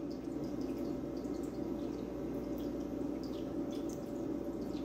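Thick carrot-top dressing poured from a glass jar onto salad greens: faint wet drips and soft pats over a steady low room hum.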